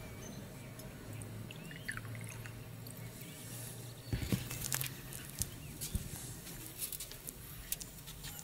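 Coffee cup, saucer and water glass clinking and knocking on a metal serving tray in a cluster of sharp clicks about halfway through, followed by a few scattered knocks, over a low steady hum.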